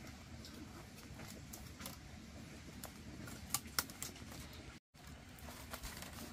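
Thin split-bamboo strips ticking and scratching as they are threaded by hand through a woven bamboo basket, over a low steady background hum. There are a few sharp ticks a little past halfway, and the sound cuts out briefly near the end.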